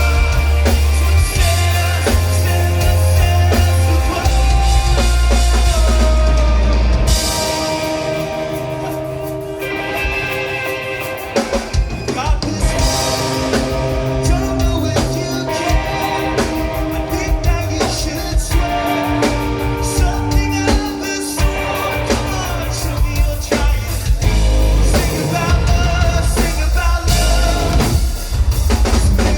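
Rock band playing live, with singing, electric guitar, bass and drums. The heavy bass and drums drop away for a quieter stretch several seconds in, then build back up.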